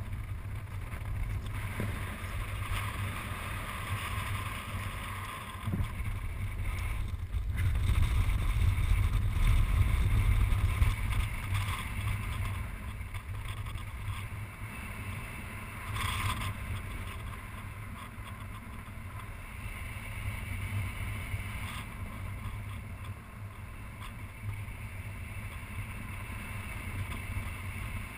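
Wind rushing over the microphone of a riser-mounted camera on a paraglider in flight, a low buffeting rumble that swells louder for a few seconds about a third of the way in. A brief rustle sounds about halfway through.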